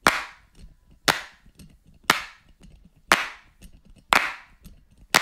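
Sharp, clap-like percussion hits on a steady beat, about one a second, each ringing out briefly, with faint ticks between: the opening beat of a music track.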